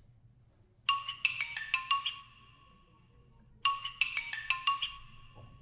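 Mobile phone ringing with a marimba-style ringtone: a quick run of about eight bright notes, played twice.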